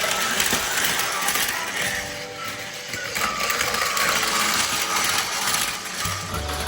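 Battery-powered plastic toy tracks running: small motors and gears whirring with a steady dense rattle of plastic parts.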